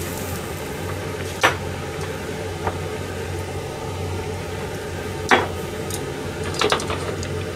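A few sharp clinks of a small jar and utensils against the rim of a simmering soup pan as seasoning is added, the loudest about five seconds in and a quick pair near the end, over a steady low hum.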